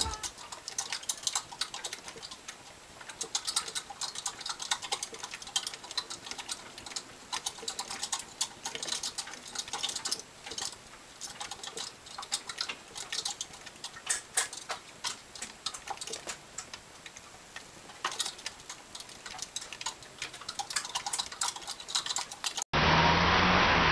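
Plastic exercise wheel spinning as a squirrel runs in it: a dense, irregular clatter of small clicks and ticks from the squirrel's claws on the ribbed track and the wheel turning on its axle, in uneven flurries. It cuts off a second before the end, giving way to a steady hiss.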